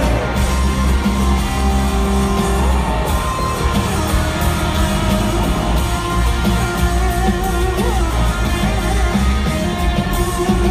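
Live country-rock band playing loudly in an arena, with acoustic and electric guitars, drums and bass under a male lead vocal, heard from within the audience.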